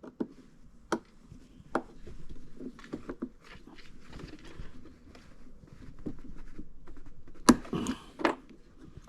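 Hand tools clicking and knocking on the boat's drive hardware as the collet is loosened and pushed back to free the flex cable: about six sharp clicks with handling noise between them, the loudest about seven and a half seconds in.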